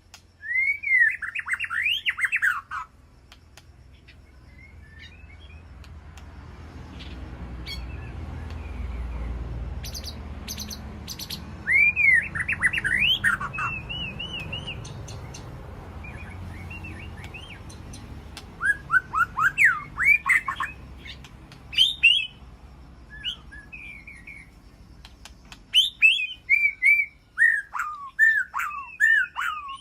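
White-rumped shamas calling in several bursts of quick, sweeping notes, with a few sharp ticks in between. A low rumble swells and fades behind them through the middle.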